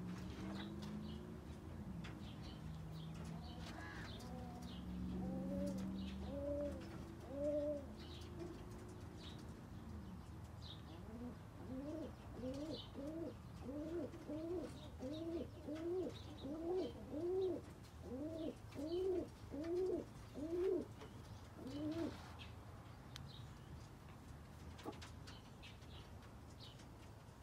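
A bird of the pigeon family cooing: a few coos several seconds in, then a run of about fifteen quick rising-and-falling coos over some ten seconds. Small birds chirp faintly throughout.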